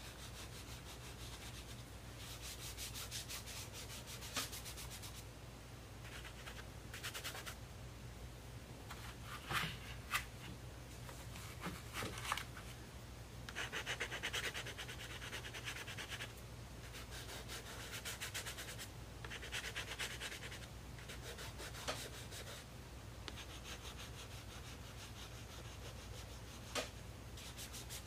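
Soft pastel stick scratching over toothy mixed-media paper in several runs of quick back-and-forth strokes, separated by pauses, with a few sharp taps.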